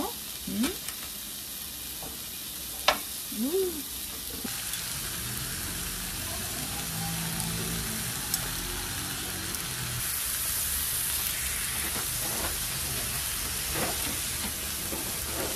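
Thick strips of pork belly sizzling steadily on a hot ridged grill plate over a portable gas burner, with a few light clicks.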